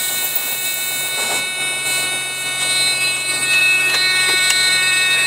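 Freightliner dashboard warning buzzer sounding as one continuous steady tone over the diesel engine running at idle; a buzzer with the red dash light after a cold start is typically the low-air-pressure warning, the air brake system not yet aired up.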